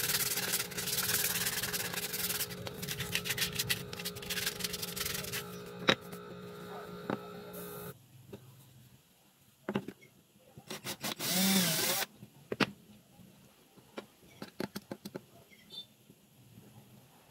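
Sandpaper rubbed by hand over a small piece of wood in quick back-and-forth strokes, stopping about five seconds in. Afterwards come scattered knocks and handling sounds, with one short burst of scraping about two-thirds of the way through.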